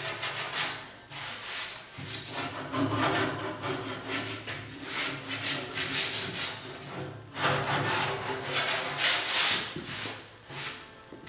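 Hardened body filler (Bondo) on a car fender being shaped by hand with a body shaping rasp, in repeated back-and-forth scraping strokes.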